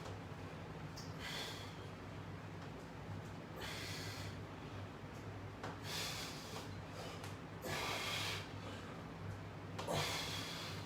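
A person breathing, with a short noisy breath about every two seconds, over a steady low hum.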